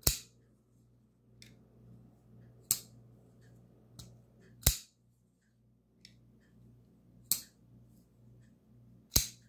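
Ganzo Adimanti Neformat folding knife on ball bearings flipped open with the flipper tab: five sharp snaps as the blade swings out and locks, with a fainter click between each as it is folded shut. A steady low hum from a fridge and freezer runs underneath.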